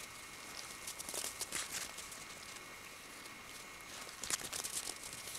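Soft crunching of an Alaskan Malamute puppy's paws in snow, in scattered bunches about a second in and again about four seconds in.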